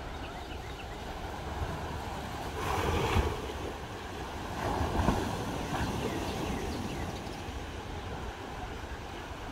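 Small waves washing up on a sandy shore, with wind rumbling on the microphone; the wash swells louder about three seconds in and again about five seconds in.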